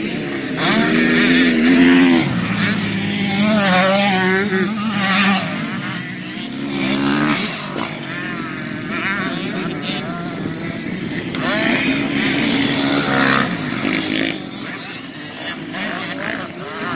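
Motocross dirt bike engines racing past, revving up and down. The pitch rises and falls several times as riders shift and work the throttle.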